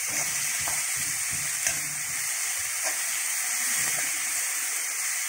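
Chopped onions and green chillies sizzling steadily in hot oil in a metal kadai, with a spatula scraping the pan as they are stirred and light taps about once a second.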